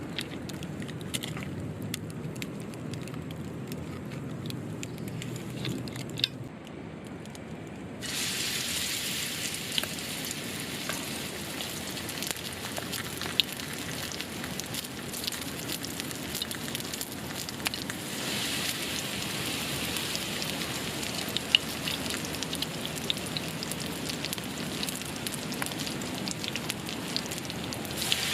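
Campfire cooking: sizzling and crackling, with scattered sharp pops. The sizzle gets denser and louder about eight seconds in.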